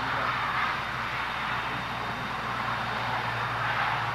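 Steady rushing background noise with a constant low hum underneath, swelling slightly twice.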